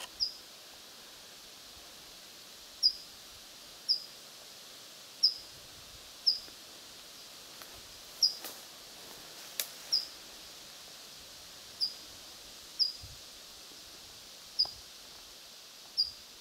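A small bird repeating a single short, high call that drops quickly in pitch, about a dozen times at uneven intervals of one to two seconds, over faint outdoor hiss.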